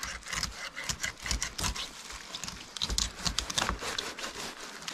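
Irregular wet clicks, taps and light rustles of whitefish being handled and cut by hand.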